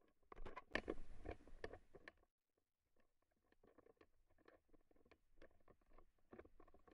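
Footsteps of a hiker's boots on a loose, stony mountain trail: faint, irregular crunching and clicking of stones underfoot. Louder and denser in the first two seconds, then a short pause before the steps go on.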